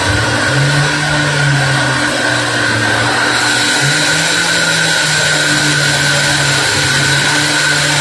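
Large band sawmill running and sawing through a big walnut log. Steady machine noise carries a constant high whine over a low hum that shifts in pitch several times.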